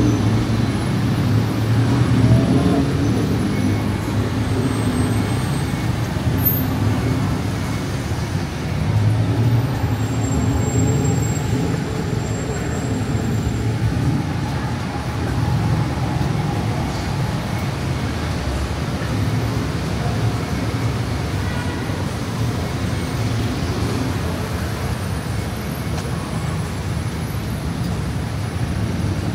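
Steady road traffic on a busy city street, with vehicle engines running and passing close by in a continuous low rumble that swells and eases.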